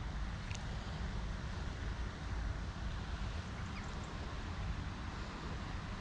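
Wind buffeting the microphone, a steady low rumble, with a faint tick about half a second in.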